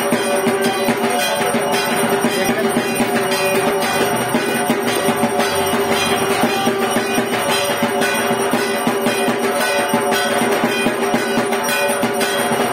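Music with a steady beat over held tones.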